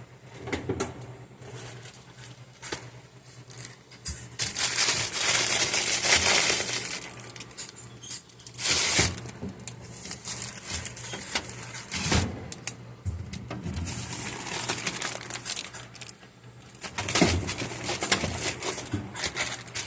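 Plastic packaging rustling and crinkling as it is handled, in irregular bursts: a long loud stretch about four seconds in, a short burst near nine seconds and another near the end, with small clicks and taps between.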